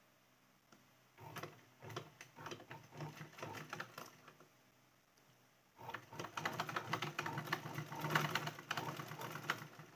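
Domestic sewing machine stitching fabric in two runs of rapid clicking: one from about a second in to about four seconds, and a longer one from about six seconds to near the end.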